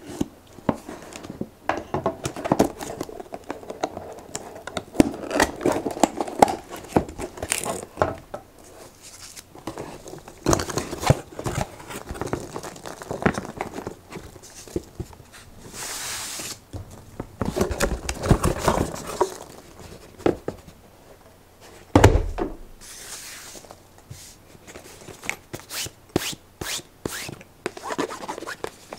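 Unboxing handling sounds: a knife slitting packing tape on a cardboard box, cardboard flaps scraping and tearing, and foam packing peanuts rustling and tumbling onto a wooden tabletop, with many small taps and scrapes. One heavy thump about three-quarters of the way through.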